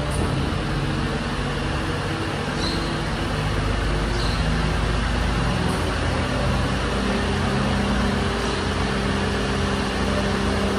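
Refuse truck's diesel engine running steadily. About seven seconds in its note rises and steadies as the engine speeds up. Two brief faint high squeaks come about three and four seconds in.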